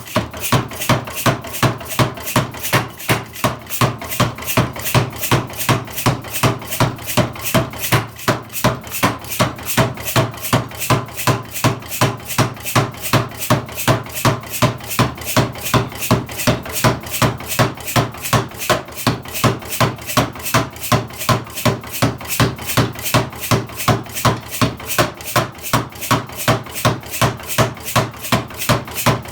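Hartenfels pneumatic power hammer running, its ram striking in a steady, even rhythm of a little over two heavy blows a second.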